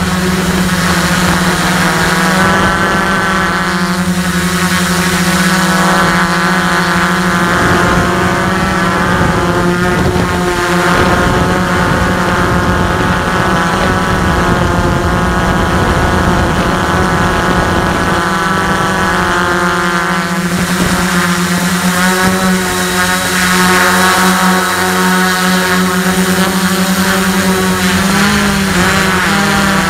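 S500 quadcopter's brushless motors and two-blade propellers running in flight, a loud steady buzzing hum whose pitch wavers near the end as the motors change speed. The props are not yet balanced.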